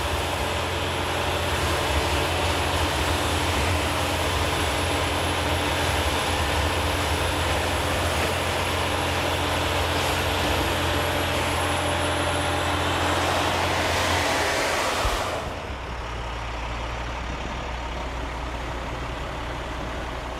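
Sewer vacuum truck suctioning a catch basin through its rigid leader tube: a loud, steady rushing of air and water with the truck's engine humming beneath. About fifteen seconds in, the rushing cuts off suddenly, leaving the engine running quieter.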